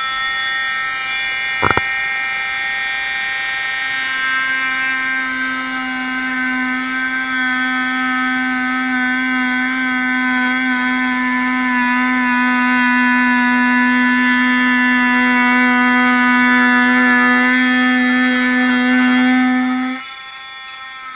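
Dremel oscillating multi-tool running steadily as its blade cuts through a plexiglass aircraft canopy, the plastic melting at the cut. It gives a high, even whine; a lower hum joins about four seconds in, and the sound drops off sharply near the end. There is one brief click about two seconds in.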